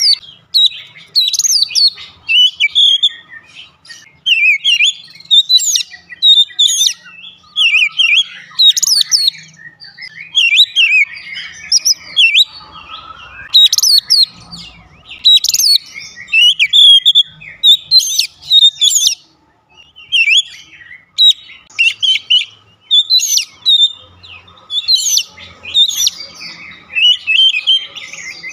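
Oriental magpie-robin (kacer) in full song: a loud run of short whistled and chattering phrases with quick pitch slides, one after another about once a second, with a brief pause about two-thirds of the way through.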